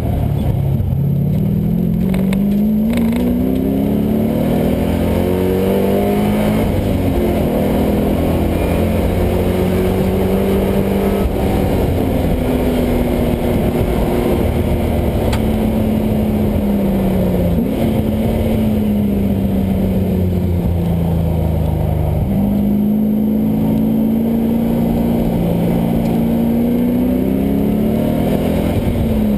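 LS1 5.7-litre V8 engine in a swapped Mazda Miata, driven hard on a race track. Its pitch climbs under acceleration, drops suddenly at gear changes and winds down while slowing, then climbs again in a long pull near the end.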